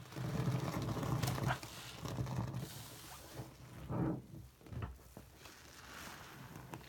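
A low droning sound for about the first two and a half seconds, then soft wet squishing as fingers push into soapy foam and squeeze a lather-soaked sponge in a sink, with a short squelch at about four seconds.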